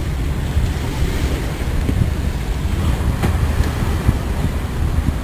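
Wind buffeting the microphone, an uneven low rumble, with a single sharp click about three seconds in.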